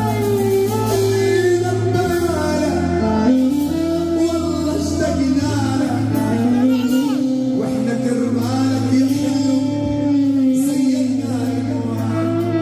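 Male singer performing an Arabic mawwal into a microphone, long wavering vocal lines that slide between notes, over live band accompaniment with a steady low held note underneath.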